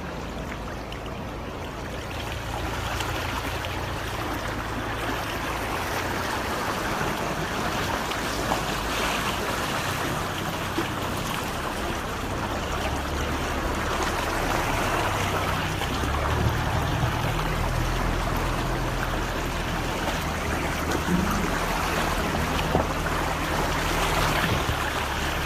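Rainwater rushing and streaming along a flooded street, a steady rush. Underneath is a low engine hum that grows stronger in the second half.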